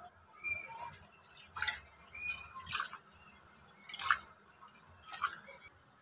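A hand swishing and rubbing red lentils in a metal bowl of water to wash them: a run of short splashes and sloshes, about one a second.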